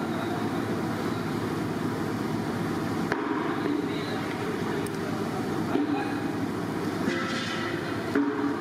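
Steady low rumbling background noise, even and unbroken except for two brief sharp breaks, one about three seconds in and one near the end.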